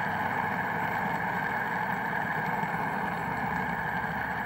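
Metal ship's-wheel fidget spinner spinning on its bearing, giving a steady, even whir.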